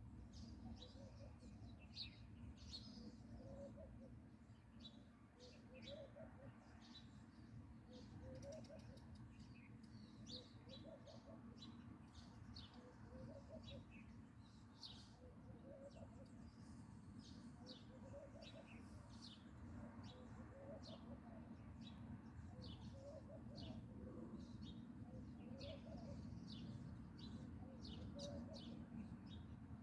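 Small birds chirping faintly: many short, high chirps in quick succession throughout, over a lower call that repeats about every two seconds and a steady low rumble.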